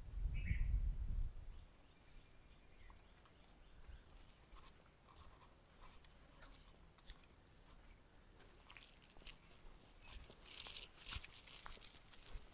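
Footsteps crunching on a gritty, rocky dirt path, sparse at first and coming thicker from about eight seconds in, over a faint steady high whine. A low rumble sounds at the very start.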